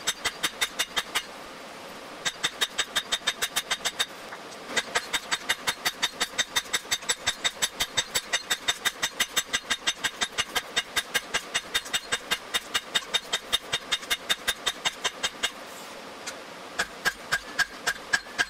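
Hand hammer striking red-hot metal on an anvil in quick, even blows, about five a second, each one ringing. The blows come in runs broken by short pauses, with a last short run near the end.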